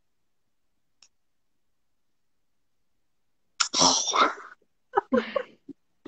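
Dead silence for about three and a half seconds, then a woman's sudden burst of laughter followed by shorter laughs.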